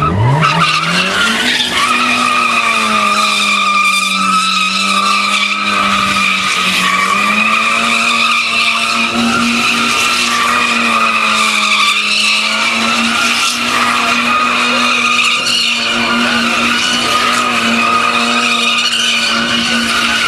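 A turbocharged Toyota Corolla is doing a burnout. Its engine revs climb hard in the first two seconds and are then held high and steady. The rear tyres squeal the whole time.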